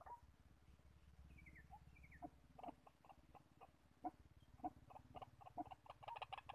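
White-breasted waterhen giving short, clipped calls, spaced irregularly and coming thicker near the end, with a couple of short falling notes about a second and a half in.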